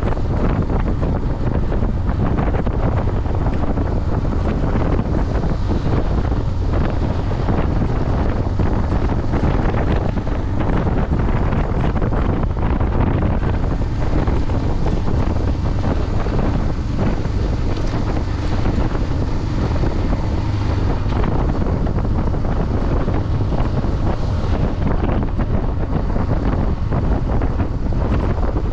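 Heavy, steady wind buffeting on a riding camera's microphone, with the motorcycle's engine and road noise running underneath.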